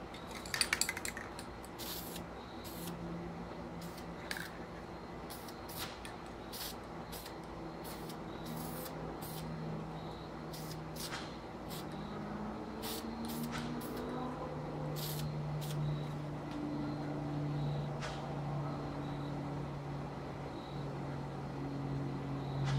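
Aerosol spray-paint can: a quick rattle of the can being shaken about half a second in, then many short bursts of spray. A low, steady drone runs underneath and grows louder toward the end.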